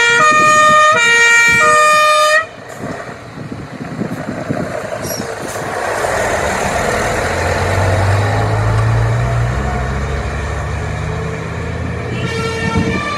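Fire engine's two-tone emergency horn sounding loud alternating high and low notes, cutting off suddenly about two and a half seconds in. The Mercedes fire truck's diesel engine and tyres then pass close by, rising and falling. Near the end the two-tone horn starts again, fainter, as the truck moves away.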